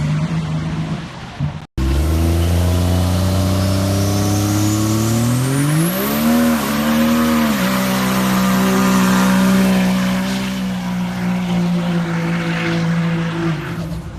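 Diesel pickup truck engine revving up with a turbo whistle climbing steeply in pitch, then held at high revs for several seconds with the tyres spinning in a burnout. The revs drop off near the end. Before this, about two seconds in, a steady engine note from another clip cuts off.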